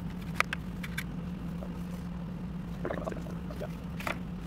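Scattered light clicks and taps from hands handling a bare drive circuit board and its wires, over a steady low hum.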